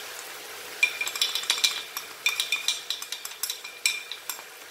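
A metal spoon stirring ground spices into masala in a frying pan, scraping and clinking against the pan in a quick run of taps starting about a second in. A faint sizzle of the frying masala runs underneath.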